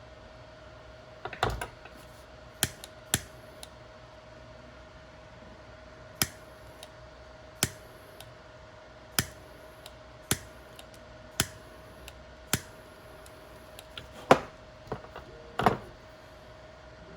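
Sharp clicks and taps of small handwork, with a run of single clicks about one a second in the middle and the loudest near the end, over a faint steady hum.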